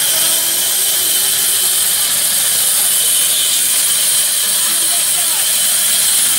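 Large vertical band saw ripping lengthwise through a log, the blade cutting with a steady, high-pitched hiss.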